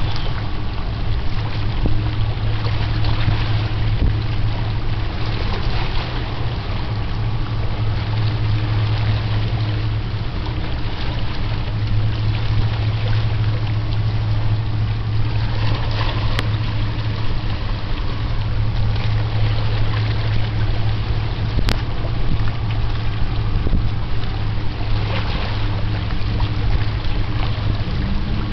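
Steady low engine drone of a boat on the water, with wind noise on the microphone over it.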